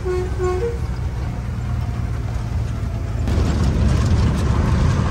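Truck engine running steadily on the road. A few short pitched toots sound in the first second, and from about three seconds in a louder rushing road noise rises over the engine.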